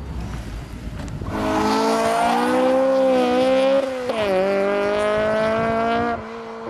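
Honda S2000's four-cylinder engine held at high revs under hard acceleration. The note dips sharply about four seconds in, climbs again, and cuts off suddenly about six seconds in.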